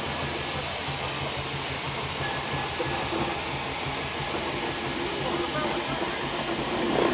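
Steam engine giving off a steady hiss of steam over a low hum, with a faint steady tone joining in a few seconds in.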